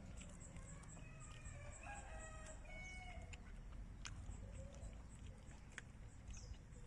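A rooster crowing once, in a drawn-out crow of about two seconds, with a high chirp repeating about four times a second behind it that stops about three seconds in.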